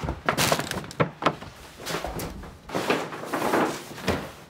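Handling noises as shopping bags and clothes are pulled about on a desk: a run of knocks and clicks, a dull thump about two seconds in, and a stretch of rustling near the end.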